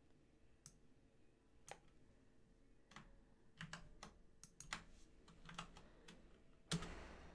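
Faint typing on a computer keyboard: scattered key clicks that come quicker in the second half, with a louder burst of noise near the end.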